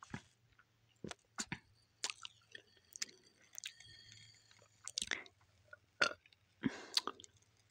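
Drinking soda through a bare metal straw: short sucks, swallows and wet mouth clicks in scattered bursts, with a brief thin whistle while sucking in the middle.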